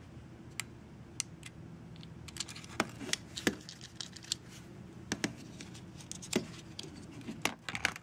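Bent steel paper clip clicking and scraping against a tiny screw in a plastic housing as it is used to work the screw loose. The clicks are irregular, a few at first and coming thicker from about two and a half seconds in, over a low steady hum.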